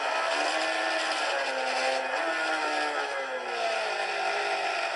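Racing motorcycle engine heard from an onboard camera lap, played through a laptop's speaker. Its note falls, steps up sharply once about two seconds in, then falls steadily again.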